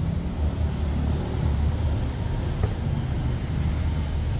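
Toyota 1NR-FE four-cylinder engine running steadily just after start-up, with a freshly fitted timing chain and tensioner and cleaned hydraulic lifters; it is being listened to for the valve-train noise that the repair is meant to cure. A single sharp click about two-thirds of the way through.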